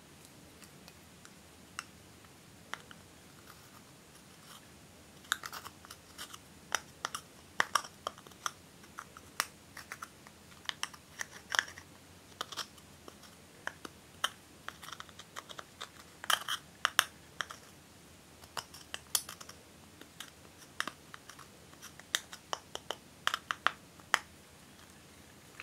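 Thin metal spatula tool scraping and chipping pressed eyeshadow powder out of a palette's pans: irregular crisp crunches, clicks and scratches, only a few at first and coming thick and fast from about five seconds in.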